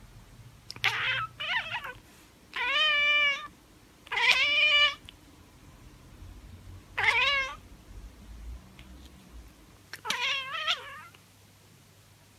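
Tabby cat chirping and chattering: six short calls, the two longest with a fast, wavering trill in the pitch.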